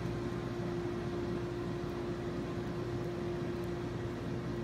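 Jetted bathtub's whirlpool pump running steadily, a constant motor hum with the jets churning the bathwater.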